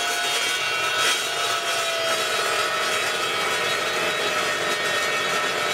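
Evolution Rage 2 14-inch multi-purpose chop saw cutting through a steel I-beam, its blade biting steadily into the metal. A constant cutting noise with a few ringing tones over it, one dipping slightly in pitch about two seconds in.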